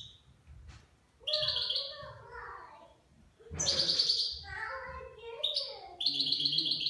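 European goldfinch singing in a cage: three phrases of rapid buzzy trills and twitters, each a second or two long, with short pauses between them.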